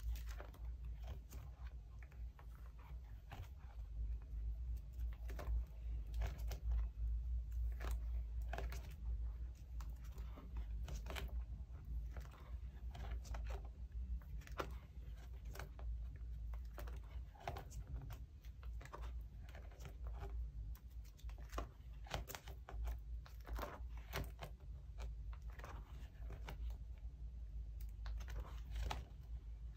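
Clear plastic binder pocket sleeves crinkling and rustling as pages are turned and handled, with many scattered light taps and clicks over a steady low hum.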